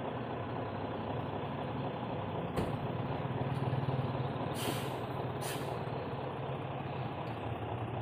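Hino truck's diesel engine running as the loaded truck moves off, its hum swelling a little about halfway through. Two short air-brake hisses come about a second apart in the middle, with a single click just before them.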